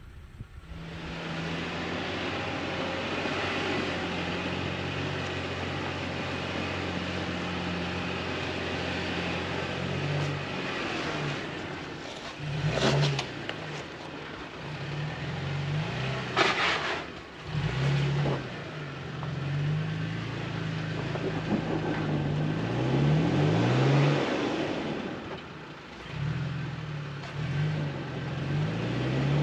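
Toyota 4x4 truck's engine pulling steadily on a steep rough track, then revving up and down from about ten seconds in as it labours for grip. Three loud knocks come from the truck striking the ground or rocks about halfway through, as it hangs up on its rear differential.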